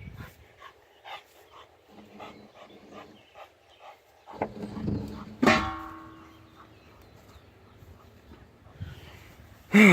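Scraping and handling noises, then a sharp metal clang about halfway through that rings on for about a second. A single dog bark comes right at the end.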